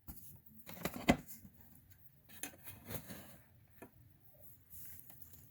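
Old wax-paper trading-card packs being handled at a table: scattered soft crinkles and light taps, with a small cluster about a second in and another near the middle.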